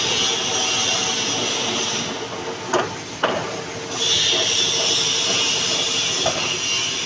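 Manual metal lathe running with a steady whirring hiss. About two seconds in, the hiss drops away for roughly two seconds, with two sharp clicks half a second apart, then comes back.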